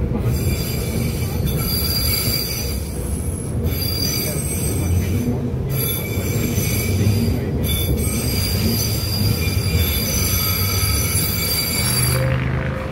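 Steel wheels of a heritage electric tram squealing against the rails: a high-pitched ringing squeal of several tones, breaking off briefly a few times and stopping near the end, over the low rumble of the car running along the track, heard from inside the car.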